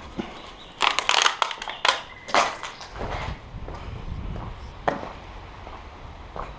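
Footsteps crunching over debris and broken shards on a tiled floor: a quick cluster of crunches in the first two and a half seconds. Then wind rumbling on the microphone outdoors, with one more click about five seconds in.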